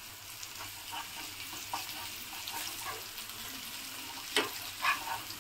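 Eggs and onions sizzling faintly in a pan while a steel slotted spatula scrapes and taps against it as the eggs are cut up and turned. Two sharper knocks come near the end.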